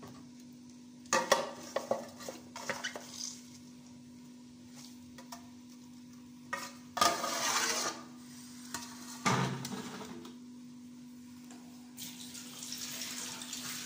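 Metal kitchenware clattering: a perforated metal colander of strained greens and an aluminium pot knocked and scraped together in handling, in scattered knocks and short clatters over a steady low hum. Near the end a steady rushing hiss starts.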